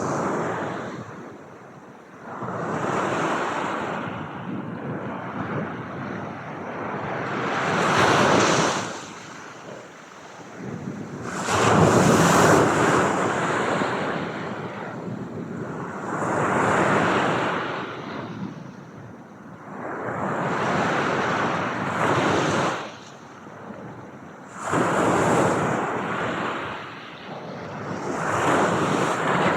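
Ocean waves breaking and washing in, rising and falling in a steady surge roughly every four seconds.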